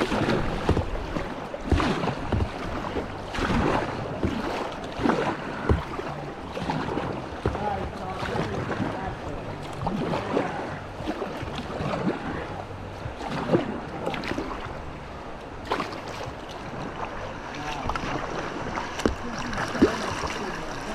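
Moving whitewater washing around a kayak, with irregular splashing from paddle strokes and wind buffeting the microphone.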